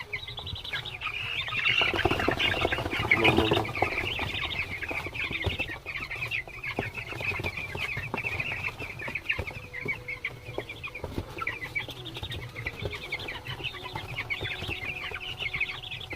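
A flock of twelve-day-old broiler chicks peeping continuously, many short high cheeps overlapping, with a louder spell about two seconds in and a steady low hum underneath.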